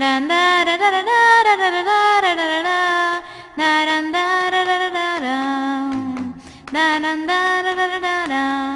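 A high voice singing a wordless melody in three phrases of long held notes that step up and down in pitch.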